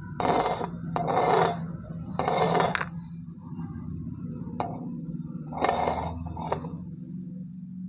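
Kinetic sand being scraped and cut in a handful of separate crunchy strokes, each about half a second long, with a couple of short ticks between them. A steady low hum runs underneath.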